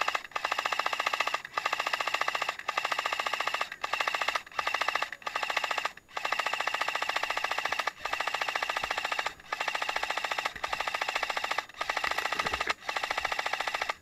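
AK-style airsoft rifle firing full-auto in about a dozen long bursts with short pauses between them: a fast, even clatter of shots with a steady whine over it.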